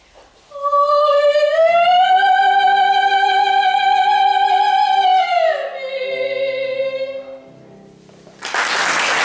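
Soprano singing the closing phrase of a zarzuela romanza with piano. After a short pause she swells into a long high held note, then steps down to a lower one, while the piano holds chords underneath. The piano closes, and applause breaks out near the end.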